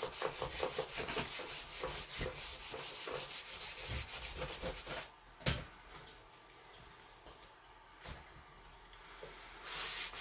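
Hand sanding with 220-grit sandpaper, quick back-and-forth strokes scuffing a plastic trim piece. The strokes stop about five seconds in, with one sharp knock, and start again near the end.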